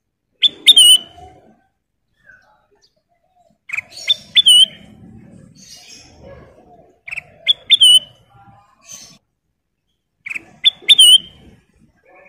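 A kutilang emas, a bulbul, singing a short phrase of quick, sharp whistled notes that ends on a rising-and-falling note, repeated four times about every three seconds.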